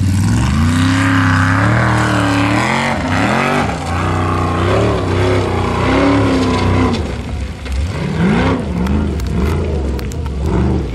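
Formula Offroad buggy's engine revving hard on a steep gravel hill climb, the revs surging up and falling back again and again. A few sharp cracks come near the end.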